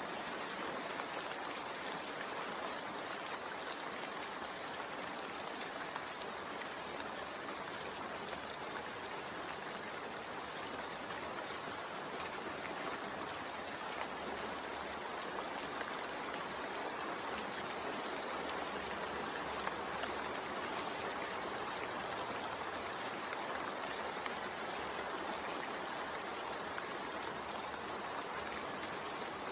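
Steady rain, an even hiss of falling water without pauses.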